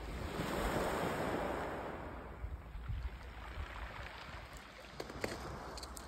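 Sea wave breaking and washing up a pebble beach: a rush of surf that swells in the first second and fades away over the next few. A few faint clicks near the end.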